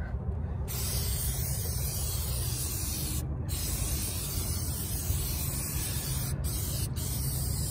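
Aerosol can of tire shine spraying onto a tire in a long hiss. The hiss starts under a second in and stops briefly a few times as the nozzle is let off.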